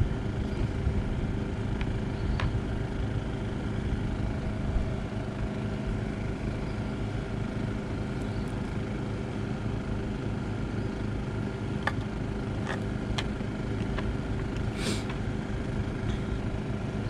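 A motor running with a steady hum throughout. A few faint light clicks come from the small parts of a shower valve cartridge being handled.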